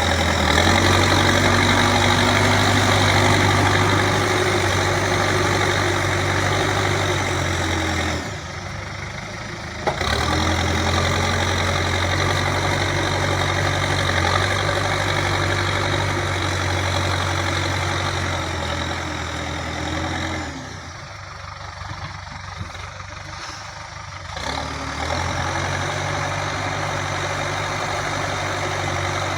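Backhoe loader's diesel engine running steadily. About eight seconds in and again about twenty seconds in, the engine sound drops away abruptly for a few seconds and then returns.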